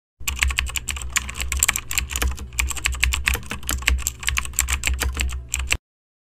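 Computer keyboard typing sound effect: a fast, irregular run of key clicks over a low hum, stopping abruptly near the end.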